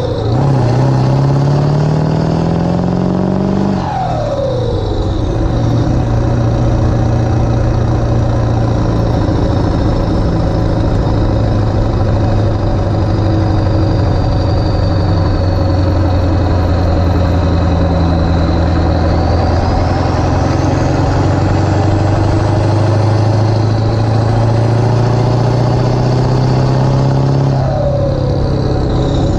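Ford 7.3 Powerstroke V8 turbodiesel driving under load. The revs climb for the first few seconds, drop with an upshift about four seconds in, then hold steady at cruise, with another upshift near the end. A faint high whistle drifts up and down in pitch over the engine.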